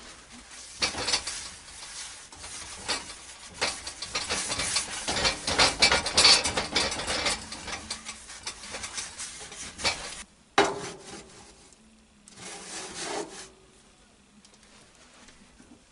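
Paper towel scrubbing around the inside of a cast iron skillet on a wood stove, oiling it to season it, in a run of fast wiping strokes. About ten and a half seconds in comes a single sharp knock, followed by another short spell of rubbing.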